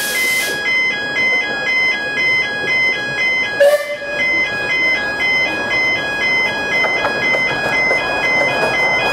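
Background music: a synthesized melody of held notes changing in even steps. About three and a half seconds in there is one brief loud burst.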